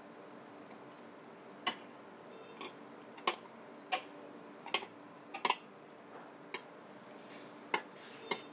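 Long metal feeding tweezers clicking against a glass tank as insects are dropped in: about a dozen short, sharp clicks at uneven intervals over a faint steady hum.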